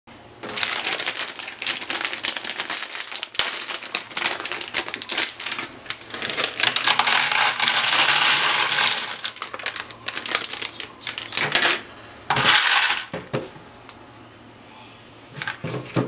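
Dry macaroni poured from a plastic bag into a plastic microwave pasta cooker: a dense rattle of many small pieces hitting the plastic, with crinkling of the bag, loudest in the middle, then a few short rattles near the end.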